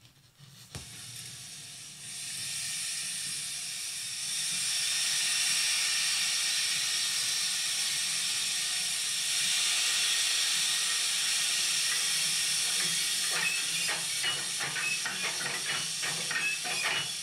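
Close-miked recording of a steam locomotive playing back from a vinyl LP over speakers. After a stylus-drop click, the hiss of escaping steam swells up and holds steady, and about thirteen seconds in a run of sharp knocks sets in over it.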